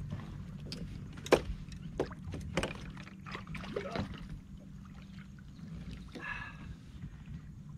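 Scattered knocks and clicks of gear being handled on a bass boat's deck, the loudest about a second in, over a steady low hum from the bow-mounted electric trolling motor. A short higher-pitched sound comes about six seconds in.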